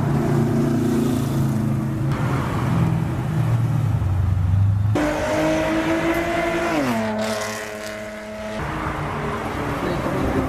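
Cars driving past with engines running. About five seconds in, one engine's note comes in and rises slightly, falls sharply in pitch near seven seconds, then holds until it stops about eight and a half seconds in.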